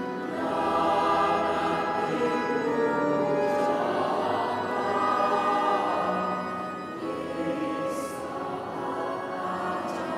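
Mixed choir of men and women singing a two-part hymn arrangement in held, sustained chords, swelling louder in the first half and softening near the end.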